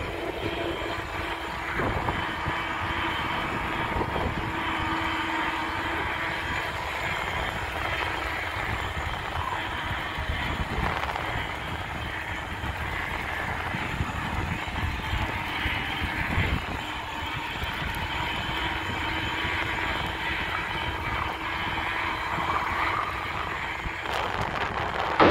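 Bicycle rolling along a paved road: steady tyre and road noise with wind rumbling on the microphone and a faint steady hum under it.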